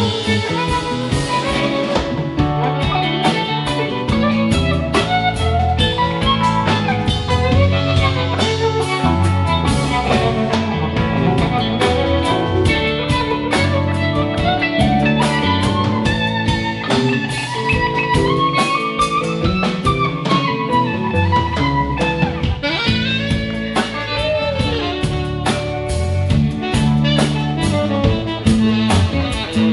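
Live rock band playing an instrumental passage on electric guitars, bass guitar, drum kit and keyboard, with a lead melody that bends and glides in pitch.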